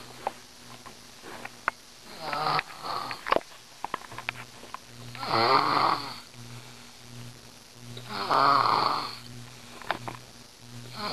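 A girl snoring crazy loud, one long snore about every three seconds, with faint clicks between the first few.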